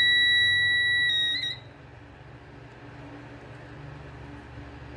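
Voltage detector's buzzer sounding a steady high-pitched beep while its tip is held at a live 220 V outlet, signalling that voltage is present. The tone wavers and cuts off about a second and a half in as the detector is pulled away, then starts again right at the end.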